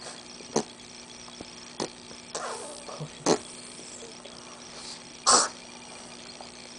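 A baby's short, sharp breathy huffs and squeals, four or five of them spaced a second or so apart, the loudest about five seconds in, with a brief pitched squeak midway; a faint steady hum lies under them.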